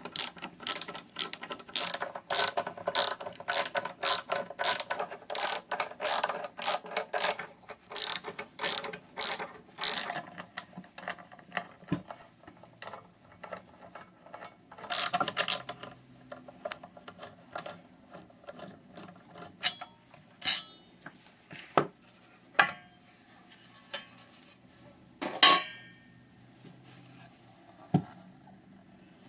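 Hand ratchet tool clicking in quick, even strokes, about two or three a second, as screws are backed out of a car amplifier's case. After about ten seconds come sparser single clicks and knocks as the parts are handled.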